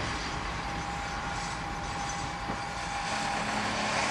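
Single-car KiHa 120 diesel railcar running slowly and drawing to a stop at a station, its diesel engine droning steadily with a thin high whine over it. A lower engine note comes in near the end.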